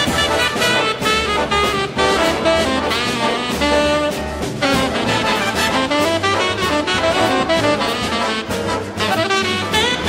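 Jazz big band playing: a standing tenor saxophonist solos over backing from the trumpets and trombones, with a steady beat from the rhythm section.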